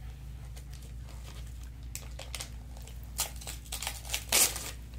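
Wrapping paper being torn and crinkled by small hands unwrapping a present. It is quiet at first, then comes a run of short rips and rustles from about two seconds in, the loudest near the end.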